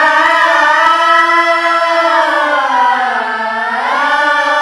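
A child qari's voice holding one long, ornamented melodic note in Qur'an recitation (tilawah). The pitch sags through the middle and rises again near the end.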